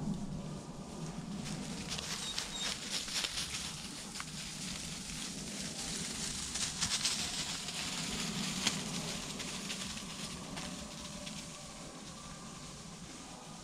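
Footsteps crunching and rustling through dry leaf litter at a steady walk, with many small crackles.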